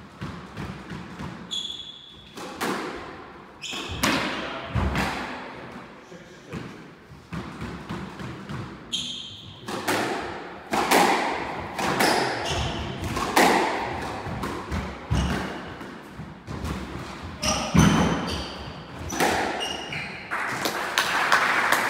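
Squash rally: a string of sharp cracks and thuds as the ball is struck by the rackets and hits the walls, with short shoe squeaks on the wooden court floor. Near the end the rally stops and applause begins.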